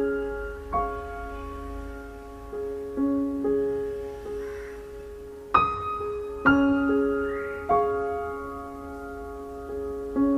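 Slow, soft background piano music: single sustained notes and chords struck a few seconds apart and left to ring out, the short phrase repeating about every seven seconds.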